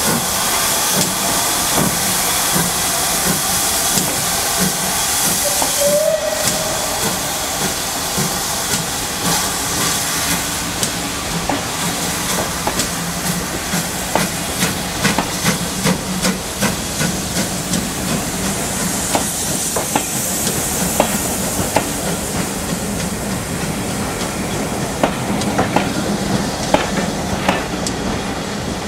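GWR 28xx 2-8-0 steam locomotive pulling away with its train, steam hissing throughout. From about ten seconds in, sharp clicks come faster and faster as the carriage wheels pass over the rail joints.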